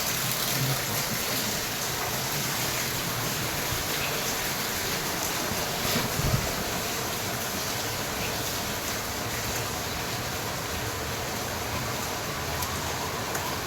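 Heavy rain falling in a steady hiss, with a brief low thump about six seconds in.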